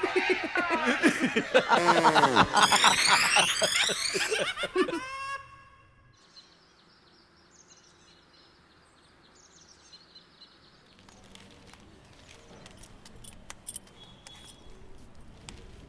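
Loud voices with sliding pitch for the first few seconds. The sound then drops to a faint outdoor hush with light bird chirps, and a few soft clicks and taps come near the end.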